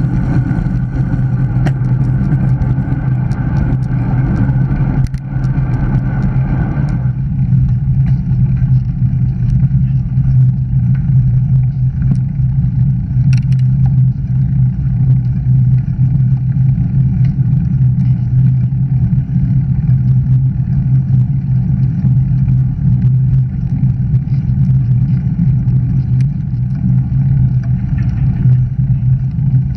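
Wind rushing over the camera's microphone, with tyre noise on the tarmac, as a road bicycle rolls along a road: a loud, steady rumble. About seven seconds in the higher hiss drops away abruptly and a lower rumble goes on.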